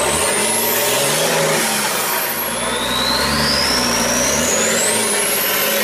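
Rock-crawler buggy's engine revving hard under load as it climbs a rock step, the revs rising and falling again and again. A high whine rises and falls along with it.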